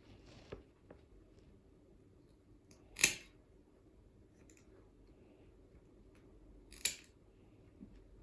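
Dog nail clipper cutting a large dog's nails: two sharp clips about four seconds apart, with a few faint clicks between.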